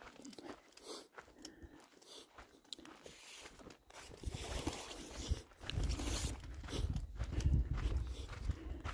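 A hiker's footsteps crunching on a dry dirt and gravel trail. About halfway through, a louder low rumble and rustling join in.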